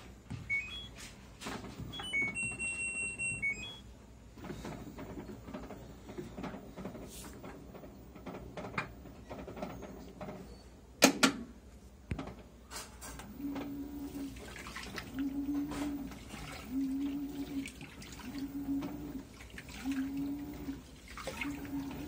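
LG 18 kg top-load washing machine: a few short control-panel beeps and one held beep near the start, then water sloshing in the drum with a sharp knock about halfway. From about two-thirds of the way in, the motor hums in short pulses about every one and a half seconds as the pulsator swings back and forth, agitating the wash.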